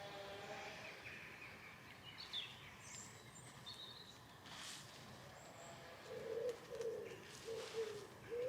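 Birdsong in the background: a few short high chirps, then from about six seconds in a run of low, repeated cooing notes.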